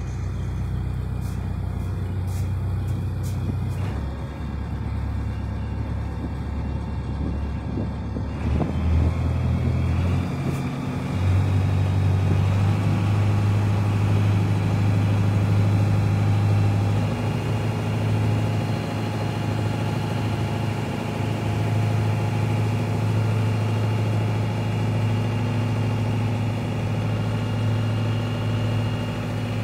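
Small passenger ferry's engine running with a steady low hum, growing louder about ten seconds in and then holding steady.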